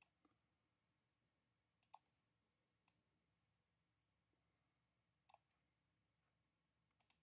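A few faint, sharp clicks over near silence, scattered singly with a quick cluster of three near the end. These are clicks from the pointing device used to write on screen while an answer is boxed in.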